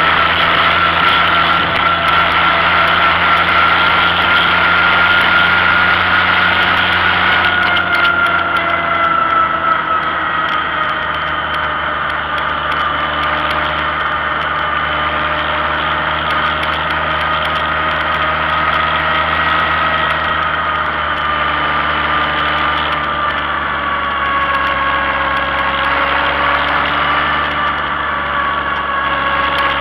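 Tractor engine running steadily under way, heard from the tractor itself, with a constant engine tone that drifts slowly in pitch as the speed changes a little.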